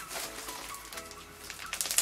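Soft background music with a few held notes. Near the end, crackling and squelching come in as slime packed with styrofoam beads is squeezed in the hands.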